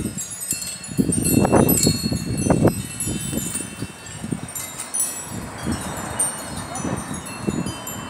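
Wind chimes ringing, many high ringing tones overlapping. Low bumps and rumble underneath, loudest between about one and three seconds in.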